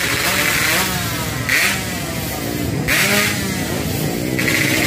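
Motorcycle engines running, revved up and down, with two louder rev bursts about a second and a half and three seconds in.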